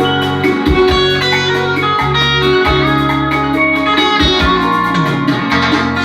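Recorded music played on a Chevrolet Celta's car sound system: plucked guitar over a steady beat and a strong bass line.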